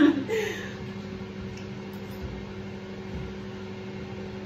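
Steady hum of a running kitchen appliance, two low held tones over an even hiss, with a couple of faint knocks.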